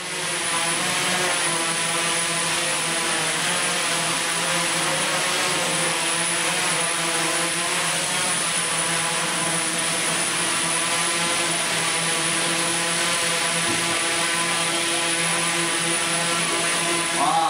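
Large multirotor camera drone hovering, its rotors giving a steady hum of several stacked tones.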